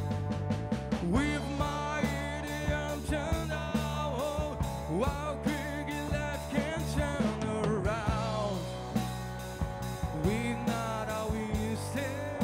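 Rock band playing live: a male singer's lead vocal over electric guitar, electric bass and a Pearl drum kit, with a steady drum beat.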